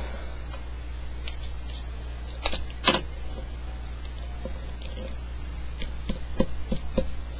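Paper being folded and creased by hand: scattered crinkles and clicks, two sharper ones about two and a half to three seconds in and a quick cluster near the end, over a steady low hum.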